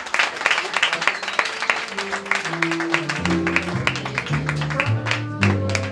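Audience applauding with scattered claps, while from about two seconds in an instrument on stage plays a short run of held low notes.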